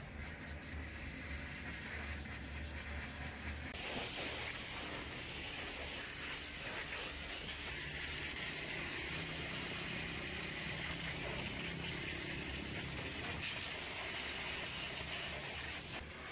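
Pressure washer spraying water onto a truck, a steady hiss that starts about four seconds in, over a low steady hum.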